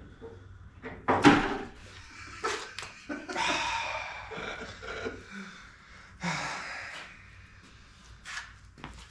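A sharp clatter about a second in, a flat screwdriver dropping into the coolant drain bucket under the radiator, followed by further handling knocks and rattles.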